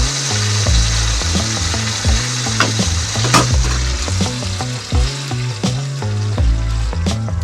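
Food frying in a pan with a steady sizzle, and a utensil stirring it in short strokes now and then.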